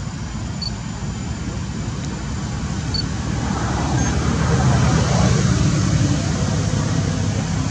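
A motor vehicle passing by: a low engine and road rumble that builds to its loudest about five seconds in, then eases off.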